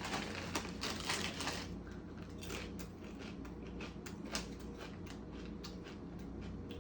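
Chewing crunchy chips up close: a run of dense crackly crunches for about the first second and a half, then sparser single crunches.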